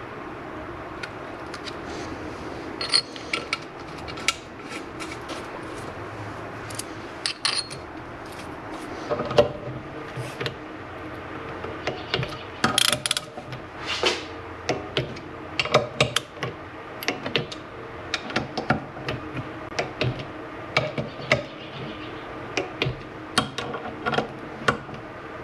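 Ratchet wrench clicking in short runs, mixed with scattered metal clinks, as the bolts of the oil pump cover on a Corvair flat-six engine block are run down and tightened.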